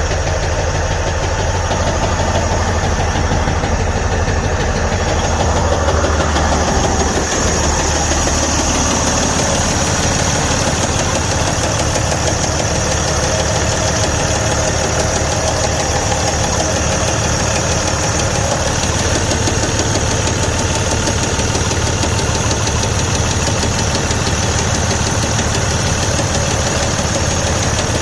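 Detroit DD15 inline-six diesel engine running at a steady idle with a loud, rapid, rhythmic knock: a connecting rod knocking on a damaged rod bearing, which the owner puts down to a defective rod bearing since oil pressure reads good.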